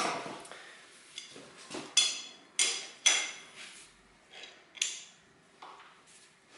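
Metal hand tools clinking against each other and against the engine, several separate sharp clinks with a brief metallic ring, the loudest at the very start and about two to three seconds in.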